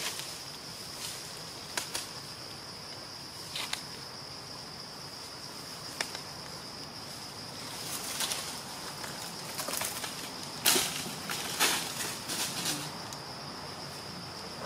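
Forest ambience: a steady high-pitched insect drone with several short rustles of dry leaves and twigs, the loudest about ten and a half seconds in.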